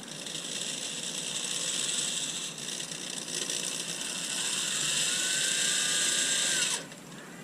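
Power drill running in one long stretch, easing briefly about two and a half seconds in, then stopping abruptly near the end.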